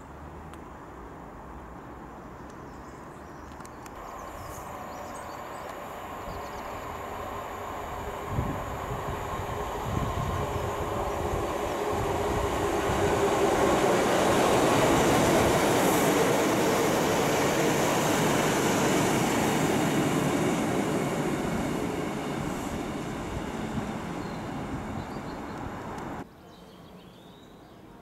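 A Northern diesel multiple unit passing along the line: the engine and the wheels on the rails grow louder to a peak about halfway through, then fade away, and the sound cuts off suddenly near the end.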